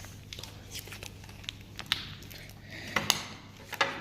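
Wet homemade slime being squeezed and pressed by hand to work the excess water out, making a few short, sharp squelches and clicks.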